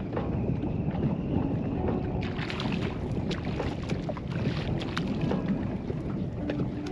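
Wind rumbling on the microphone aboard a small boat, with scattered sharp clicks and a stretch of brighter hiss from about two to five seconds in.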